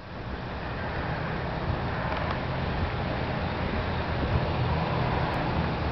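Yard mule's diesel engine idling steadily as a low rumble, with wind on the microphone.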